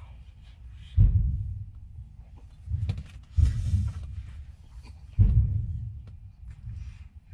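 Several dull low thumps that fade over about a second, the heaviest about a second in and about five seconds in, with light clicks of a plastic spoon and food container and a brief rustle about three and a half seconds in, as someone eats at a fold-down table in a truck cab.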